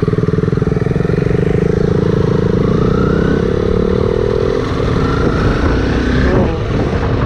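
Honda CBR sport bike's single-cylinder engine running under way on the rider's own motorcycle. Its pitch climbs twice as it accelerates, with the noise of the ride mixed in.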